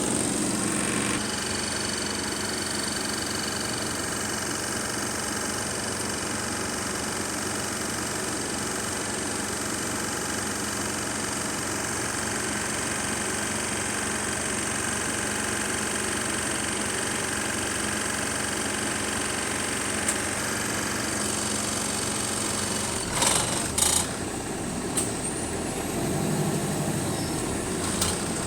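A bus's engine running steadily, heard from on board, with a rattle in its idle. Several sharp knocks come near the end.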